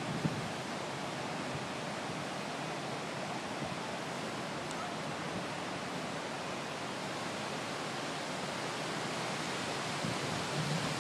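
Steady rushing hiss of brown floodwater flowing across a flooded street, with a low hum coming in near the end.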